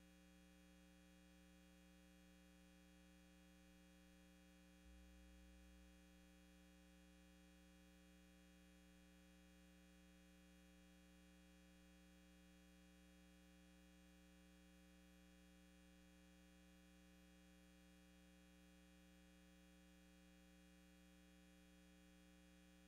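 Near silence: a faint, steady electrical hum, with a brief low rumble about five seconds in.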